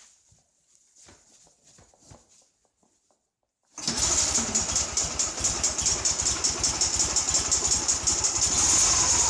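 Light rustling and clicks, then about four seconds in a Ural motorcycle's flat-twin engine starts abruptly and runs at idle with a fast, even pulse. The owner reports a strong knock in the right cylinder, newly fitted with a new piston in an aluminium cylinder, that appeared after break-in.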